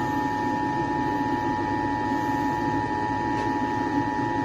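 Emergency Alert System two-tone attention signal: a steady, piercing dual tone held unchanged and cutting off right at the end, announcing an incoming emergency alert, here a severe thunderstorm warning. A steady background noise runs underneath.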